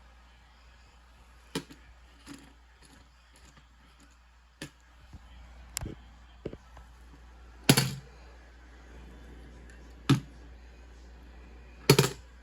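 An air horn being handled without being blown: a string of irregular clicks and knocks. The two loudest are short thumps, one about eight seconds in and one near the end.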